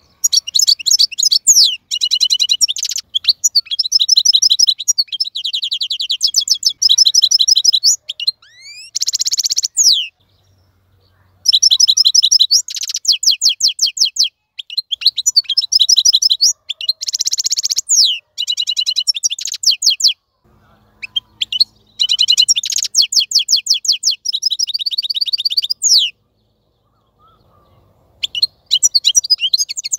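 A wild-caught European goldfinch singing: rapid twittering runs of quick repeated high notes and trills, in phrases of a few seconds broken by brief pauses about ten and twenty seconds in and again near the end.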